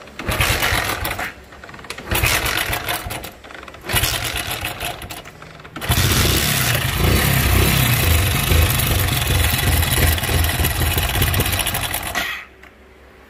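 Hero Splendor motorcycle engine being kicked over without starting, making a strange abnormal mechanical noise. Three separate kick strokes, then about six seconds of continuous, heavier cranking noise that stops shortly before the end. The bike is a non-starter that cut out on the road.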